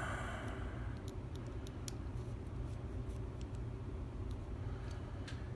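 A few faint, sparse clicks of small metal lock parts and tools being handled, over a steady low hum.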